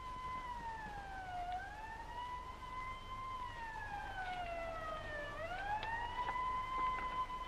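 A siren wailing. Its tone slides slowly down, swings back up and holds, in a slow repeating rise and fall.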